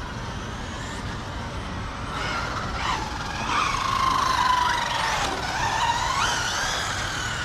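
Whine of electric RC cars' brushless motors, more than one at once, rising and falling in pitch as the cars speed up and slow down; it is loudest about halfway through.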